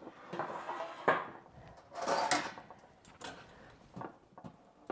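A few separate metal clinks and knocks from handling a roaster oven's removable enamel pan and wire roasting rack, the loudest about two seconds in.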